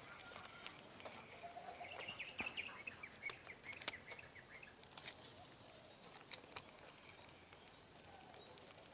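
Outdoor ambience: a steady high insect drone, with a bird's quick run of chirps a couple of seconds in and a few sharp clicks in the middle.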